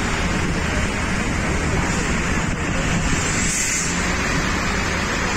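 Wind buffeting the microphone of a camera carried along on a bicycle ride: a steady, loud rush with a rumble underneath.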